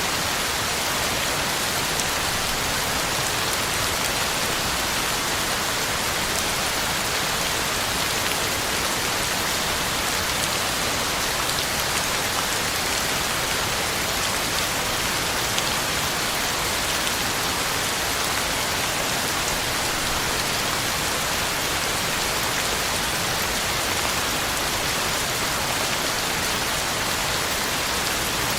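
Heavy rain falling steadily, a dense even hiss with faint patter of drops on surfaces and leaves.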